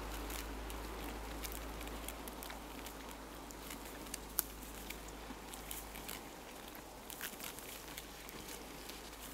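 Alpacas nibbling and chewing Scots pine branches: irregular small crunches and snaps of needles and twigs, with one sharper snap about four seconds in.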